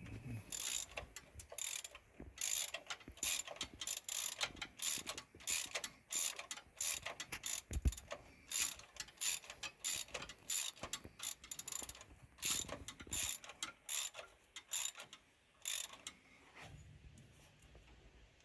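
Socket ratchet wrench turning a bolt in quick repeated strokes, its pawl clicking in short bursts; the clicking stops about two seconds before the end.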